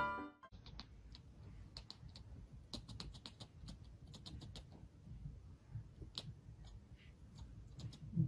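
Background music cuts off, followed by faint, irregular light clicks and taps over low room noise.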